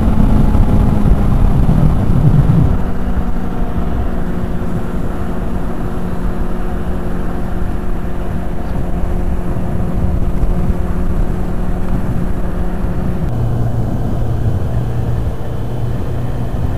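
Motorcycle engine running at road speed under heavy wind buffeting on the microphone. The engine note holds steady, drops in pitch about three seconds in, and drops lower again near the end.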